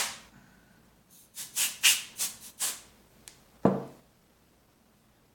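About five short puffs from a can of compressed air, blowing dust off the screen-protector install bridge, followed by a small click and a louder thump as something is set down.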